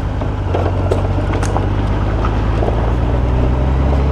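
Honda Gold Wing motorcycle engine running steadily while riding, a low even hum.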